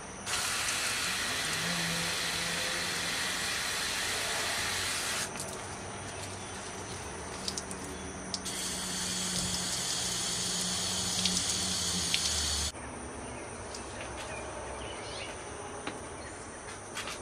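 Water spraying from a garden hose nozzle: a full hiss that switches on and off sharply and lasts about five seconds, then a second, thinner and higher spray of about four seconds.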